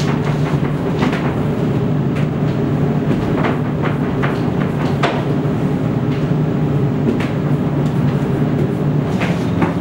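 A steady mechanical hum with scattered clicks and knocks over it.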